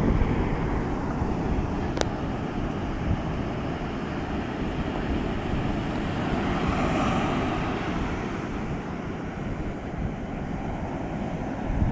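Atlantic surf breaking and washing up the beach, with wind buffeting the microphone. A wave's wash swells up about six to eight seconds in. A single sharp click about two seconds in.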